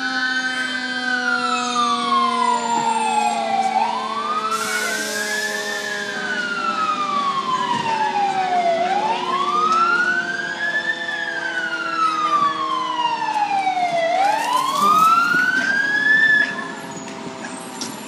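Fire engine siren wailing: four cycles, each a quick rise and a slower fall of about five seconds, over a lower steady tone that slowly sinks in pitch, then cutting off suddenly near the end as the truck arrives.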